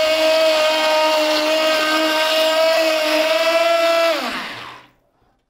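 Handheld immersion blender running in cold-process soap batter (lye solution and oils), pulse-blending it toward trace. It runs at a steady whine, then is switched off about four seconds in, its motor winding down with a falling pitch.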